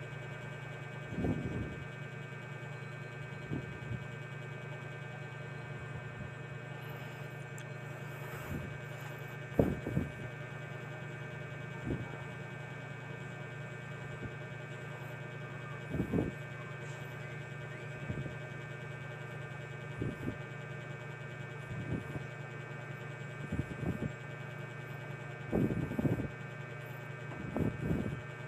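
A steady low electrical-sounding hum with faint steady tones above it. About a dozen short, soft bumps break through at irregular intervals, a couple of seconds apart.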